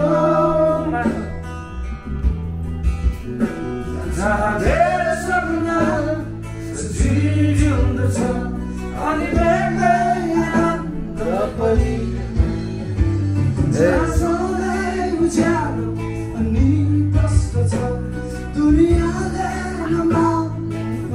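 Background music: a song with a singing voice over guitar and a steady bass line.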